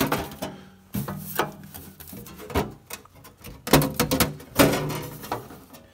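Thin 18-gauge sheet-steel floor panel being pushed and worked into place over the vehicle's floor pan, with a series of metal clanks, knocks and scrapes.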